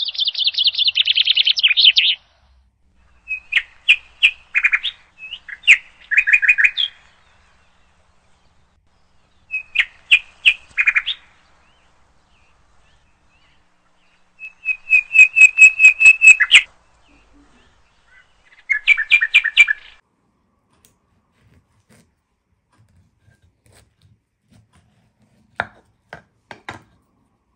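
A songbird singing in five separate phrases of quick repeated notes and trills, with pauses of a second or more between them. Near the end, a few short sharp clicks.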